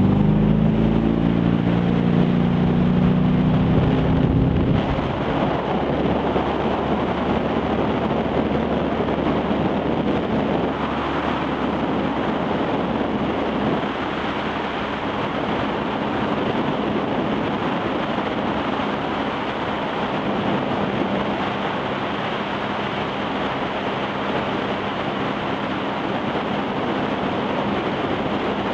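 Ski boat engine running at speed, around 41 mph, its pitch rising slightly over the first few seconds. It is then largely covered by a steady rush of wind on the microphone and the hiss of spray from a barefoot water skier's feet planing on the water.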